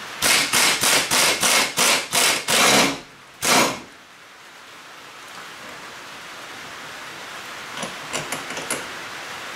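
Impact wrench hammering in about eight short bursts over three seconds, then one more burst, backing out a bolt under the car. A few faint clicks follow near the end.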